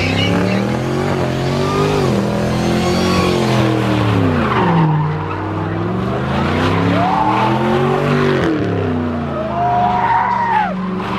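A car engine revving up and down in long sweeps, with the tyres screeching and spinning continuously, as at a burnout or donut.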